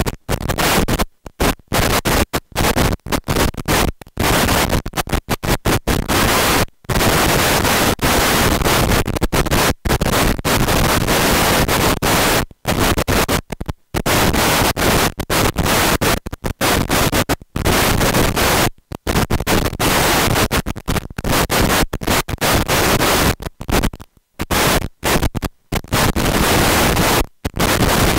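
Loud, harsh static-like noise spread evenly from low to high pitch. It cuts out into silence many times at irregular intervals, sometimes for only a split second, and comes straight back each time.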